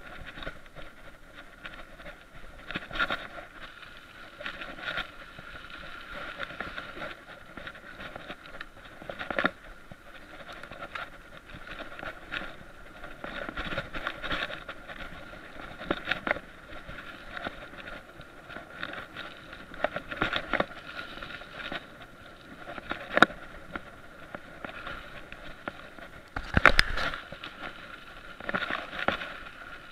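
Mountain bike riding over a bumpy dirt and grass trail: steady tyre and riding noise with irregular knocks and rattles from the bike over bumps, and one sharp jolt near the end.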